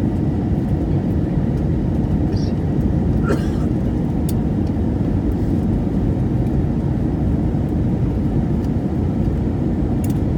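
Steady cabin noise of a passenger airliner in flight: an even low rumble of engines and rushing air, heard inside the cabin.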